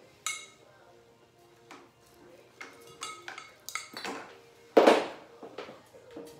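Quiet background music under the knocks and clinks of hard objects being handled and set down: a ringing clink just after the start, several light knocks, and a loud clatter about five seconds in.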